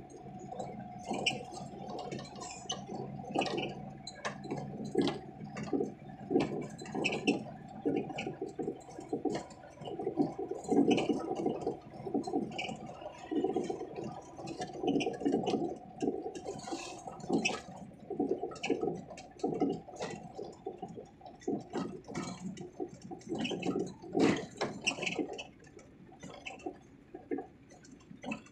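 Interior of a Mahindra Jeeto mini truck driving over a rough, potholed road: irregular rattling and knocking from the body and load bed over a steady whine, easing off near the end.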